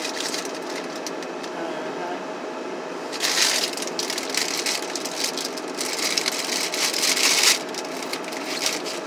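Thin plastic food bags crinkling and rustling as they are handled, loudest in two stretches, a few seconds in and again near the end, over a steady hum in the car cabin.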